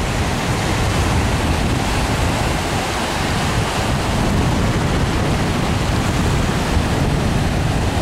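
Ocean surf washing in and out over the shallows, a steady rushing hiss, with wind rumbling on the microphone.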